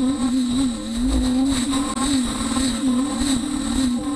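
Beaver HDZero CNC router milling aluminum plate. A strong machine tone swings up and down in pitch a couple of times a second as the router runs, over a steady high whine.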